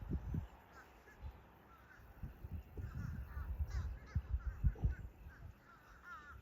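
Limpkin calling: intermittent harsh, crow-like cries, mixed with repeated low rumbling surges of noise.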